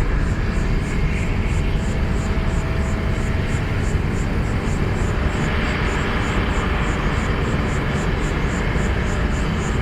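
Steady jet aircraft engine noise, with a faint high-pitched pulsing repeating about three times a second.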